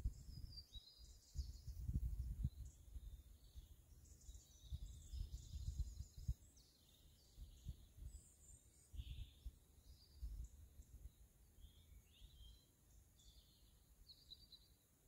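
Faint outdoor ambience: birds singing with scattered short chirps, and uneven low rumbles of wind on the microphone.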